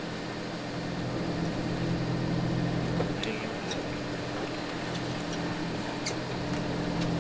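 Boat engine idling with a steady low hum, with a few light clicks about three, five and six seconds in.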